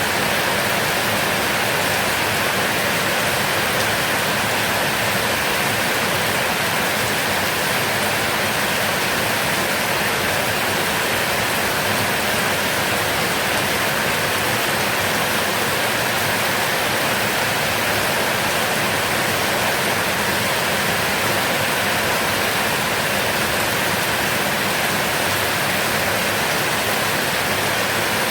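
Heavy rain falling steadily, a dense even hiss with no let-up or thunder.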